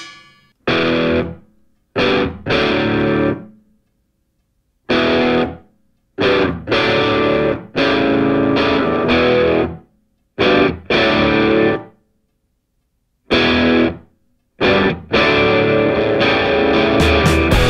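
Background rock music: distorted electric guitar chords played in short stop-start bursts, separated by moments of silence.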